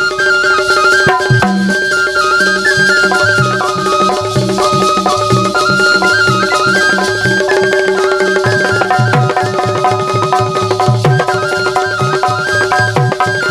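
Instrumental passage of Bundeli Rai folk music: hand drums keep a steady rhythm under a stepping melody played over a held drone note, with no singing.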